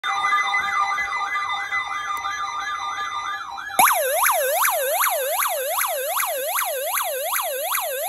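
Weather-radio alert alarm sounding for a NOAA Weather Radio warning test: an electronic warble, about three sweeps a second, over steady tones. About four seconds in a louder warbling alarm cuts in abruptly, each sweep dipping in pitch and snapping back up.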